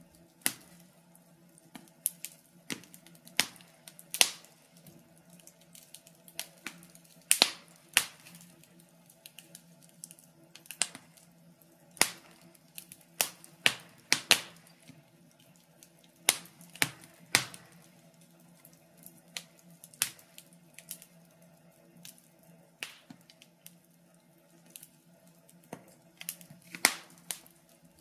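Wood fire crackling in a fireplace: irregular sharp pops and snaps, about one or two a second and sometimes in quick clusters, over a faint steady low hum.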